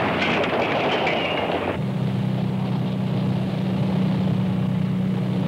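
A car driving on a dirt road: tyre and gravel noise for about two seconds, then a sudden switch to a steady low engine drone as heard from inside the cabin.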